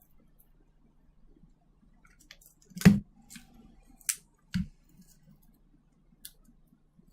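A handful of sharp clicks and light knocks from handling the phone's small parts and tools on a work surface, starting about three seconds in, the first one the loudest.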